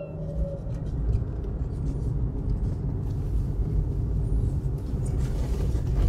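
Car driving on a road, heard from inside the cabin: a steady low engine and road rumble with light tyre hiss.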